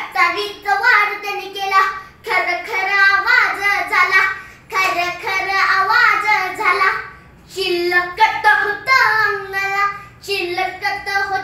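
A young boy singing a Marathi powada ballad unaccompanied, in phrases of a few seconds broken by short breaths.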